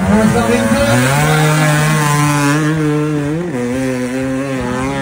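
Enduro motorcycle engine held at high revs under load as the bike climbs a steep mud hill, its pitch wavering slightly, with a brief jump in revs about three and a half seconds in.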